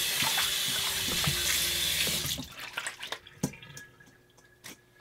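Bathroom faucet water running into a stainless steel bowl sink while hands are washed under it, shut off about two and a half seconds in; a few light clicks and taps follow.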